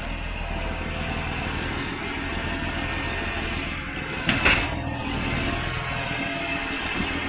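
Garbage truck's diesel engine running with an exhaust leak: a steady low rumble under a hiss, with a brief louder burst about four and a half seconds in and another at the very end.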